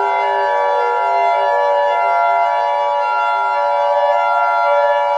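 Warning siren sounding a steady, loud chord of several tones that holds its pitch without rising or falling.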